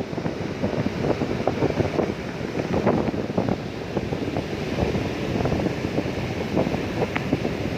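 Ocean surf with wind buffeting the microphone: a steady, rough rumble with no breaks.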